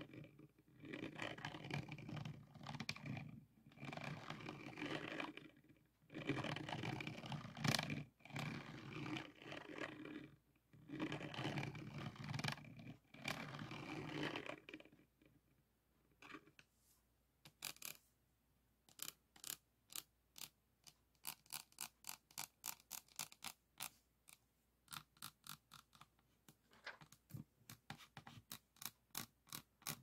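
Diamond-painting drill pen and resin drills on the canvas. For about the first half there are several rough scraping strokes, each a second or two long. Then comes a run of crisp light taps, about two a second, as drills are pressed into place one by one.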